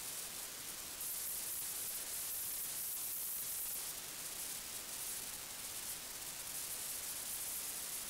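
Steady electronic hiss from the Sightmark HD 4-32x digital night-vision riflescope's built-in recorder, strongest in the highest pitches, with no other sound standing out.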